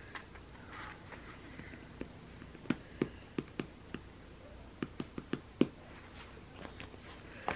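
Paper sticker sheet and planner being handled on a desk: light taps and clicks, about four close together a few seconds in and a quicker run of about five a couple of seconds later.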